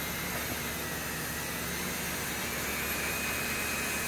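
Ryobi cordless drill running steadily, driving a screw through a plastic mounting bracket into a wooden fence post. Its motor whine holds steady and edges up slightly in pitch about three seconds in.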